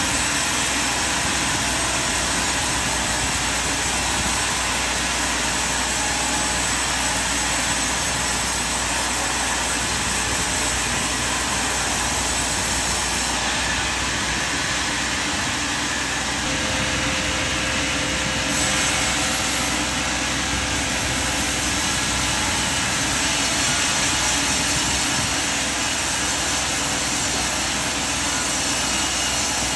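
Sawmill machinery running with a steady, even mechanical noise as timber is sawn.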